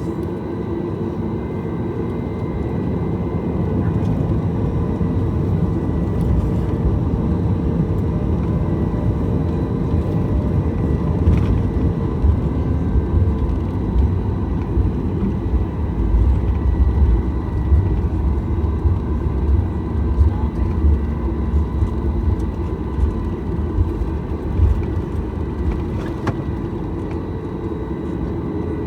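Cabin noise inside a Boeing 737 MAX 8: a steady engine hum and low rumble that grows louder about four seconds in, with irregular low thuds through the middle.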